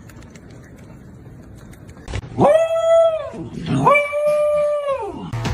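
A pet gives two long, drawn-out calls a little apart, each rising at the start, held level, then falling away at the end.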